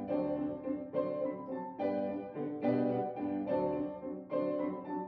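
Background piano music, a new chord struck a little under once a second.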